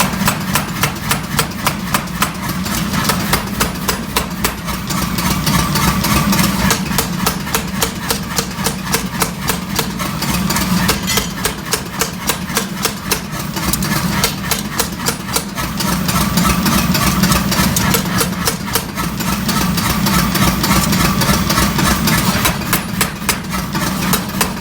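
Hammer blows on hot 5160 spring steel during knife forging, striking at about three a second in spells with short pauses, over a steady machine hum.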